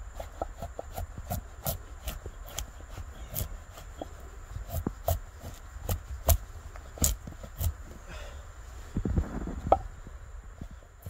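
A blade carving a wooden spoon out of a stick by hand: short, sharp cutting strokes into the wood, unevenly spaced at roughly two a second.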